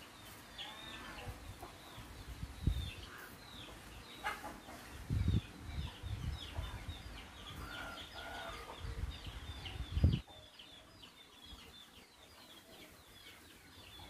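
Outdoor birds calling, with many short high chirps in quick succession throughout. A few low thumps on the microphone stand out about 3, 5 and 10 seconds in.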